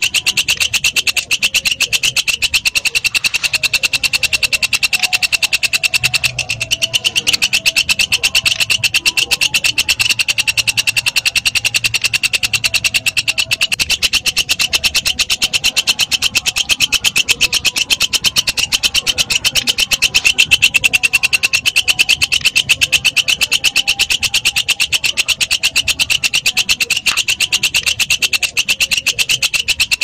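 Walang kecek katydid (bush cricket) stridulating: a steady, fast, even run of high-pitched clicking calls.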